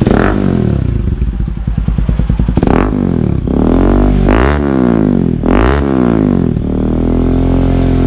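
Rouser 200NS single-cylinder engine idling and revved in four quick blips, each rising and falling in pitch, through a black Villain slip-on muffler with a carbon tip held onto its exhaust for a sound check.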